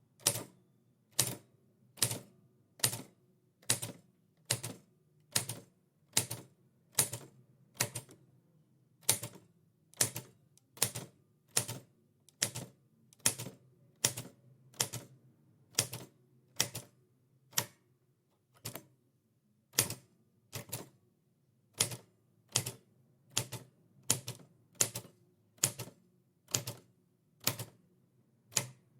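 Typewriter keys struck one at a time at a slow, even pace, a little more than one sharp clack per second, with a brief pause partway through.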